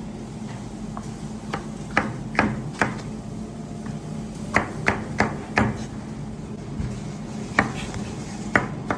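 Kitchen knife chopping green peppers and a tomato on a cutting board: sharp knocks of the blade hitting the board, in short irregular runs of a few strokes. A steady low hum runs underneath.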